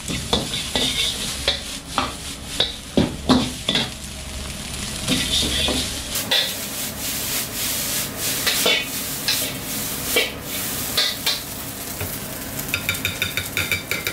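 Steel ladle scraping and clanking against a wok in irregular strikes as fried rice is stir-fried, over a steady sizzle.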